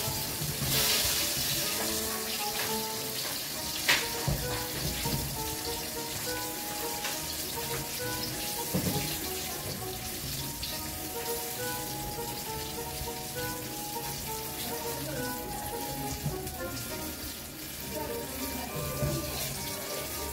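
Hot oil sizzling steadily as floured meat pieces deep-fry in a pot, with a sharp click of tongs about four seconds in. Background music plays over it.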